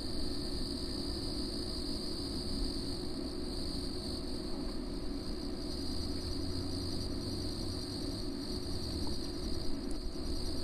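Steady night chorus of crickets with a continuous low rumble underneath.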